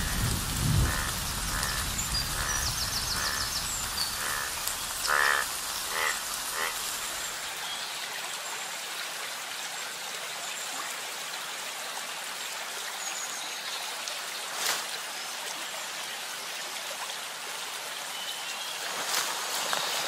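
Steady rain falling on forest foliage, with frogs croaking in a regular series of short calls, about two or three a second, over the first several seconds and a longer pulsing call around five seconds in. A low rumble dies away during the first few seconds, leaving only the rain.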